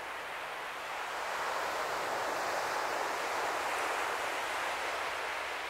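Steady rushing outdoor noise that swells slightly in the middle, with no distinct bangs or crackles.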